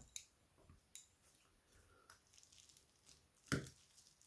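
Faint clicks and one sharper tap about three and a half seconds in, from a small hand tool and plastic phone parts being handled on the work surface during a smartphone teardown.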